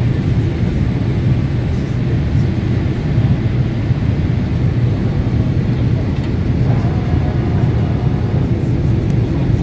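Steady low drone inside the cabin of a Boeing 787-8 descending on approach: its Rolls-Royce Trent 1000 engines and the rush of air past the fuselage.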